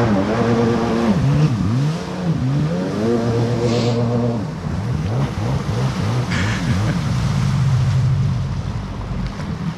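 Jet ski engine revved hard in repeated surges, its pitch swinging up and down, as the rider tries to blow out weeds clogging the jet pump intake. The weeds do not clear.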